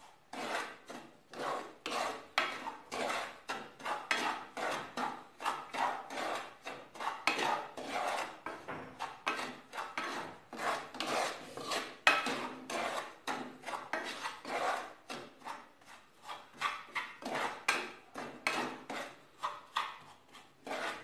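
A spatula scraping and stirring dry rice flour and gram flour around a stainless-steel pan in quick repeated strokes, about two a second, as the flours are roasted in a little oil. One sharper tick comes about twelve seconds in.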